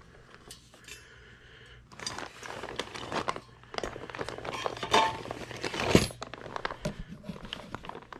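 A squirrel-cage blower wheel and its mounting ring being set down and handled on a plastic drop cloth: a run of light metal clinks and plastic crinkling, with a sharp knock about six seconds in.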